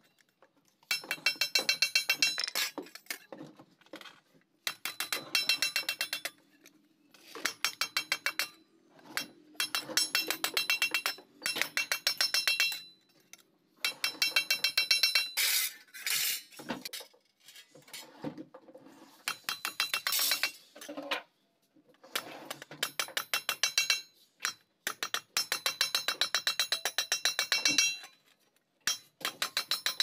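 Wooden mallet tapping rapidly on a galvanized steel sheet held over the edge of a steel rail, folding its edge over: bright metallic clinking with a ringing tone, in bursts of one to four seconds with short pauses between.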